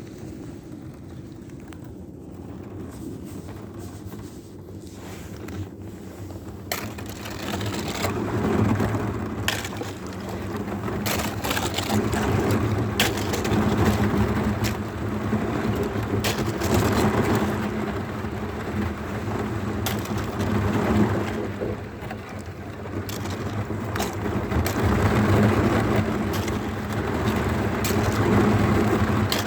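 Kayak on open water: a steady rush of wind and water against the boat, with scattered sharp knocks, getting louder about seven seconds in.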